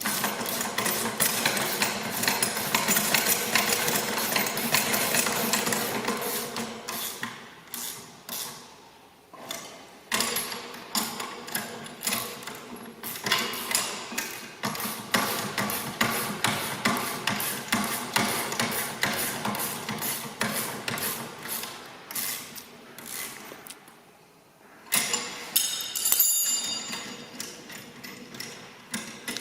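Spanners tightening the clamp bolts of a towed mower's jockey wheel: rapid metallic clicking and clanking in spells of a few seconds, with short pauses between them.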